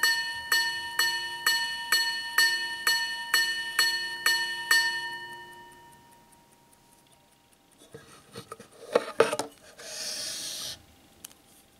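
Minute repeater wristwatch striking its gongs on a wooden sound-box: about ten evenly paced ringing strikes, roughly two a second, that stop a little under five seconds in and ring out. Later come a cluster of knocks and clicks, the loudest sounds here, and a brief scrape as the watch and box are handled.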